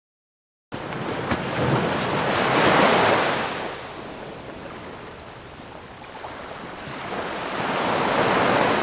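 Ocean waves crashing on a shore, starting after a moment of silence. One wave swells to its loudest about three seconds in and washes back, then a second wave rises near the end.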